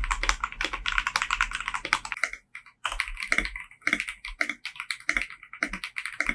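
Mechanical keyboard being typed on fast, a dense clatter of keystrokes. There is a brief pause about two and a half seconds in, then the typing resumes.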